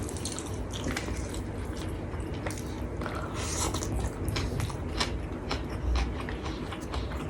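Close-miked chewing of a mouthful of rice and curry, with many small wet mouth clicks.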